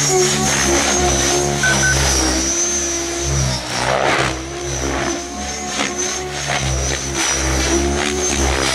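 Electric RC helicopter (Mikado Logo 700) in 3D flight: the rotor blades chopping and the motor and gear whine rising and falling in pitch as the manoeuvres load the rotor, briefly quieter about four seconds in.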